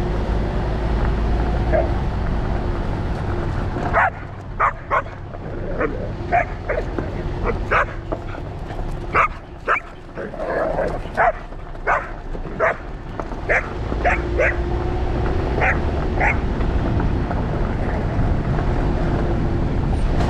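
A dog barking in a run of short, high, sharp yips, about one or two a second, starting about four seconds in and stopping about four seconds before the end, over a steady low rumble.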